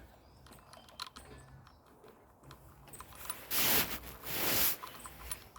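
Light clicks and taps of small motorcycle handlebar parts and tools being handled, broken by two loud, short hissing rushes about three and a half seconds in.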